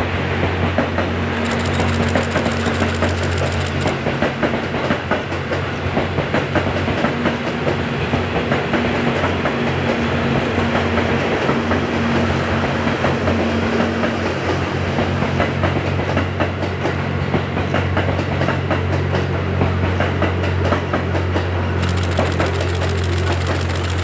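Diesel train running past on the line: a steady engine drone under a fast, continuous clickety-clack of wheels over the rails.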